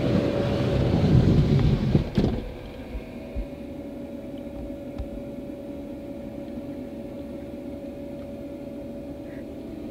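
Mercedes Sprinter van's sliding side door rolling open along its track for about two seconds, ending in a knock as it stops. Then a quiet steady hum.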